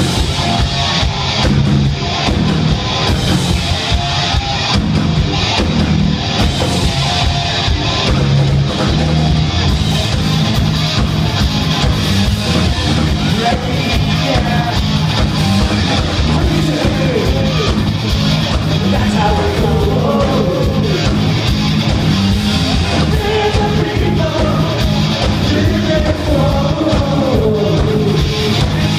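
Hard rock band playing live at full volume: electric guitars over a steady drum beat, with a wavering melody line weaving over the band in the second half.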